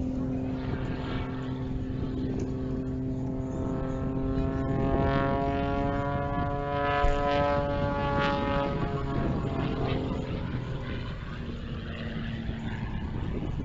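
Propeller-driven aerobatic plane's engine drone as it flies a loop overhead; the note climbs gently, peaks about seven to eight seconds in, then falls away.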